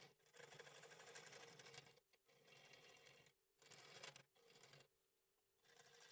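Wood lathe running with a faint steady hum while a tool or abrasive is pressed against the spinning oak bowl in short repeated passes, each a second or so of fine rasping with brief gaps between.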